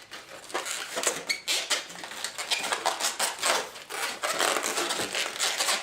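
Latex twisting balloons rubbing and squeaking against each other as they are wrapped and twisted by hand, a run of irregular short scrapes.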